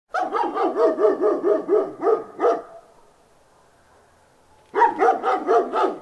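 Big dog barking in quick runs of about five barks a second: a run of about a dozen barks, a pause of about two seconds, then another quick run of about six barks near the end.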